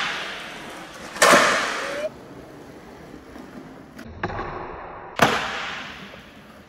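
Skateboard slapping down on concrete flatground twice, about a second in and again about five seconds in, each a sharp clack followed by a fading rolling tail and echo in the large indoor hall: landings of flatground flip tricks.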